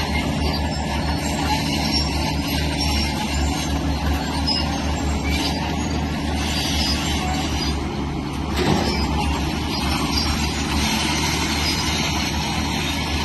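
Diesel engine of heavy earthmoving machinery running steadily under load, with grinding and hissing from the work and a single metallic clank about two-thirds of the way through.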